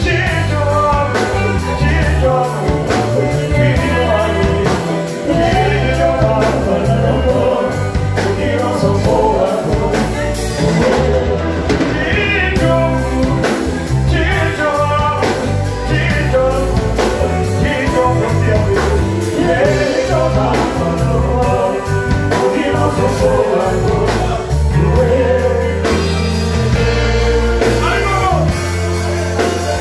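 Music: a song with a singing voice over a steady beat and a bass line.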